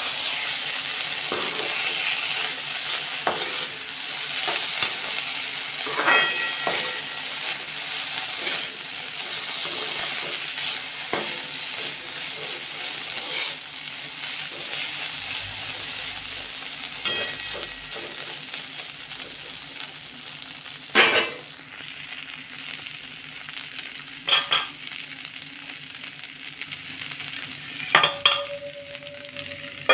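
Potato sticks sizzling in hot oil in a metal kadai, stirred and turned with a perforated metal spatula that scrapes and clinks against the pan now and then. The sizzle eases after about twenty seconds, and a ringing metal clank comes near the end.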